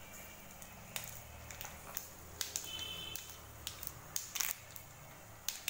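Mustard and fenugreek seeds frying in hot sesame oil in a kadai, with scattered sharp pops and crackles as the mustard seeds begin to splutter.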